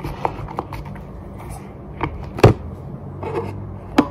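Wooden chopsticks stirring slime mixture in a plastic cup, scraping and clicking against the cup, with a sharp knock about two and a half seconds in and another near the end.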